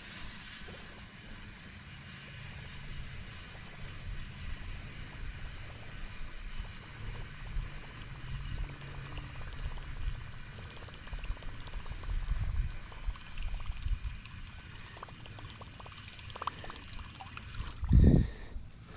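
Faint trickling and gurgling of water under a steady high drone of insects, with an uneven low rumble throughout. One short low thump comes near the end.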